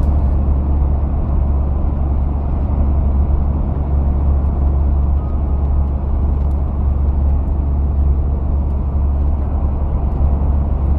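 Steady low drone of a tanker truck's engine and road noise, heard from inside the cab while cruising.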